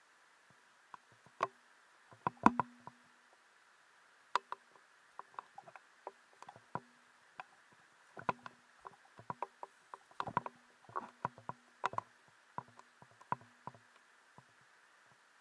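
Footsteps picking their way over the rocks of a shallow stream bed: irregular knocks and clicks of shoes on stones, some sharp, some in quick clusters.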